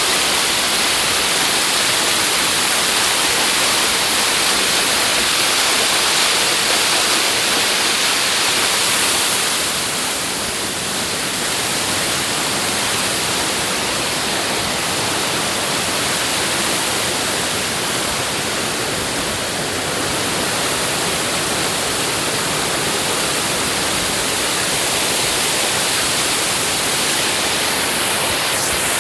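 Waterfall close by: a loud, steady rush of falling water, easing slightly for a while in the middle.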